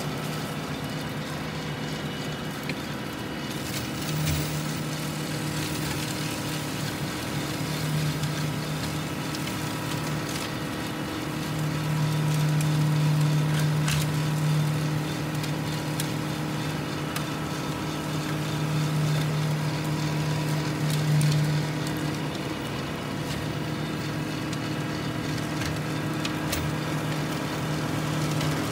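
John Deere tractor engine driving a Titan 60-inch flail mower through its PTO shaft while the flails mulch brush. The steady hum swells in stretches as the mower takes on load, with a few sharp cracks from woody stems being struck.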